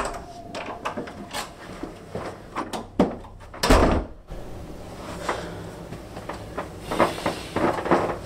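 Wooden front door being closed from inside: small clicks of the handle and latch, then the door shutting with a thud about three and a half seconds in, followed by scattered light knocks and footsteps.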